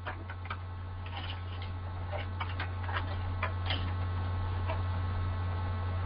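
Steady low electrical hum with faint, scattered clicks and ticks.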